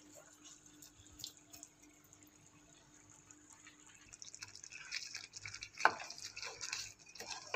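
Near silence, then from about four seconds in a wooden spatula stirring thick, creamy egg korma gravy in a frying pan: soft wet clicks and squelches, with one louder click a couple of seconds later.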